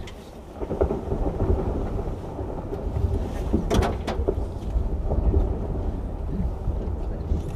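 Ice calving from the Eqi Glacier front: a low, thunder-like rumble sets in about half a second in and goes on without a break.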